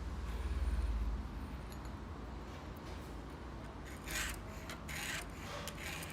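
Steel scriber tip of a height gauge scratching marking lines across a steel chisel blank, two short scraping strokes about four and five seconds in, over a low steady hum.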